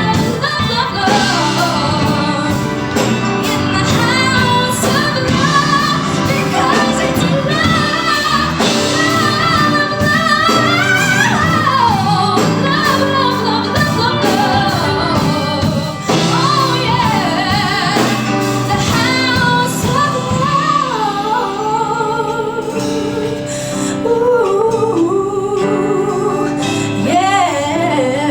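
A woman sings a pop-soul ballad live over instrumental accompaniment, with quick melismatic runs and wide vibrato on held notes. About twenty seconds in, the accompaniment drops away in the bass and the voice carries on over lighter backing.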